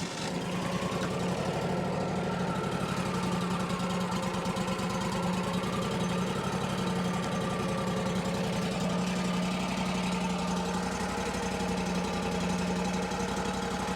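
Wood-Mizer LT40 Wide portable sawmill's engine running steadily at an even speed, with no blade cutting heard.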